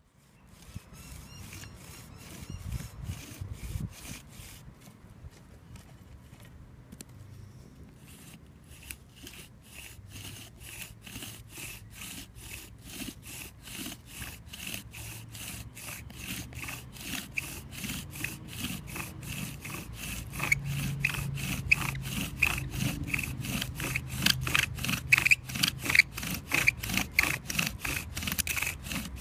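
Bow drill with a ceramic spindle grinding in a softwood fireboard: rhythmic back-and-forth bow strokes, about three a second, that begin about a second in and grow louder. From about nine seconds in there is a high squeak on each stroke. This is drilling for a friction-fire ember.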